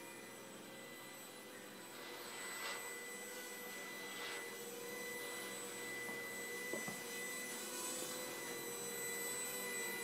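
Mini Pet four-channel toy quadcopter's small electric motors and propellers whining steadily, the pitch wavering slightly as it flies. It grows louder from about two seconds in as it comes closer, with a couple of brief rushing swells and a short click near the seven-second mark.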